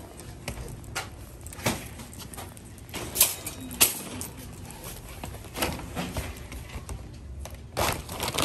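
Wire shopping cart being handled, with scattered sharp metal clanks and rattles. A cloth shopping bag rustles as it is dropped into the cart near the end.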